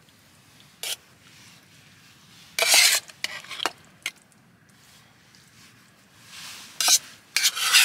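Metal spoon scraping and clinking against a camping cooking pot and a steel bowl while curry is served onto rice: a few short scrapes, the loudest about two and a half seconds in and again near the end.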